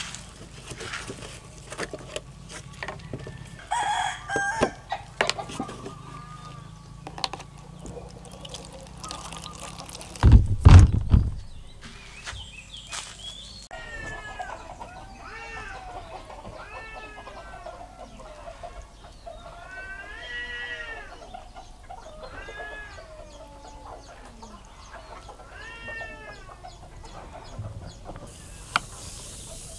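Chickens calling in the background, a run of short, arching calls repeated through the second half. About ten seconds in there is a loud low thump lasting about a second.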